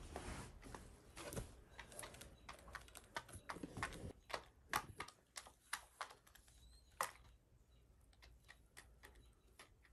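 Rhode Island Red and Australorp hens pecking at feed in a plastic dish: irregular quick taps of beak on feed and dish. The taps come thick in the first half and grow sparser later, with a few louder single knocks.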